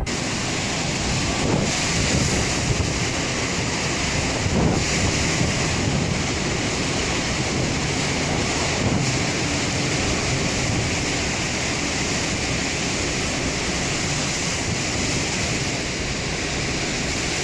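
Steady rush of storm wind and surf, with wind buffeting the microphone and swelling a few times.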